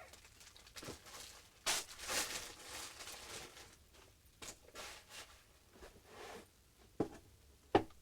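Scattered rustling and handling noises, with two sharp knocks near the end.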